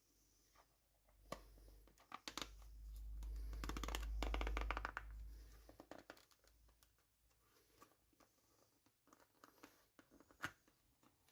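Handling noises: scattered clicks, then a few seconds of rapid scratchy crinkling with a low rumble, loudest about four seconds in.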